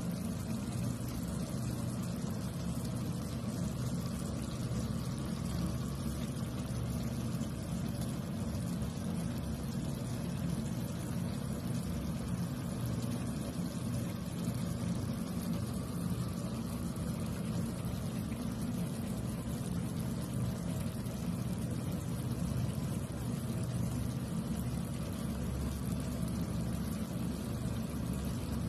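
Steady low rumble with a watery hiss from a stovetop where a pan of creamy chicken curry is simmering, unchanging throughout.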